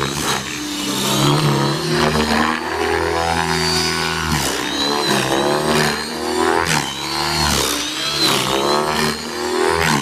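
Align T-Rex 600E electric RC helicopter flying aerobatics: the rotor and motor sound rises and falls in pitch again and again, with a high whine moving along with it.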